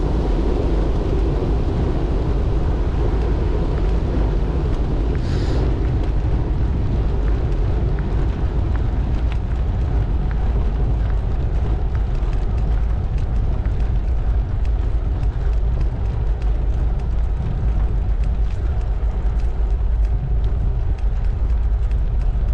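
Steady rumble of wind buffeting the microphone over the noise of tyres rolling along a coarse paved road as the vehicle travels at a constant pace.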